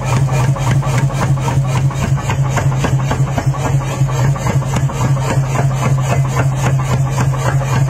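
Power hammer pounding a red-hot steel bar on its die in rapid, even blows, several a second, over the steady hum of the machine's motor.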